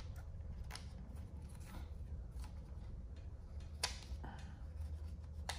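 Faint, scattered clicks and ticks of a hand hex driver backing a screw out of the plastic front bumper of a Traxxas Hoss RC truck, with a sharper click about four seconds in and another near the end.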